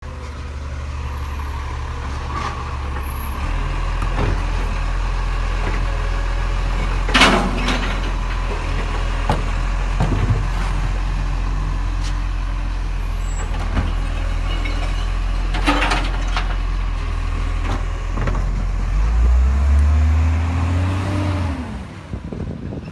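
Diesel engine of a side-loading recycling truck running while its arm works the kerbside bins, with the engine stepping up in speed a few seconds in. Two loud clanks, about 7 and 16 seconds in, come from bins being emptied into the hopper. Near the end the engine revs up and falls away as the truck pulls off.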